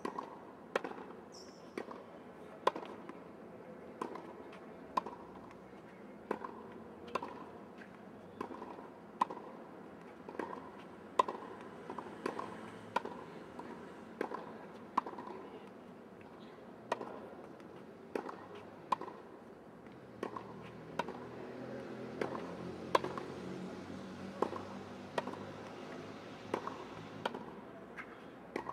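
Tennis ball struck back and forth with rackets in a volley exchange at the net, a sharp pock of ball on strings about once a second.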